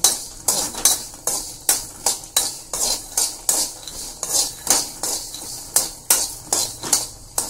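Steel ladle scraping around a metal kadai as it stirs peanuts, white sesame seeds and garlic cloves dry-roasting on the flame, in quick repeated strokes of about two to three a second.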